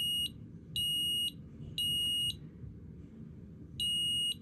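i9070 smoke alarm sounding on test in the temporal-three pattern: high-pitched beeps about half a second long, three about a second apart, then a pause, with the next group of three beginning near the end.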